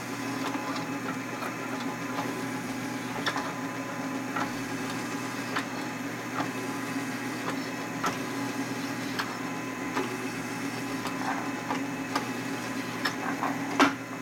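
Drill press running steadily while a chamfer cutter deburrs the edges of the holes in a brake rotor, with scattered short scraping clicks as the cutter bites each hole's edge and one sharper click near the end.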